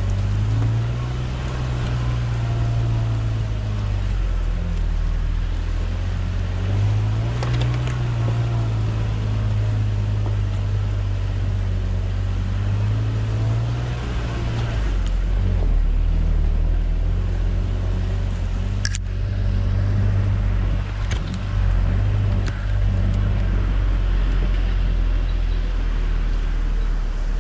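Truck engine running at low speed as the vehicle crawls along a rough dirt trail, its pitch rising and falling several times with the throttle. A few sharp knocks come in the second half.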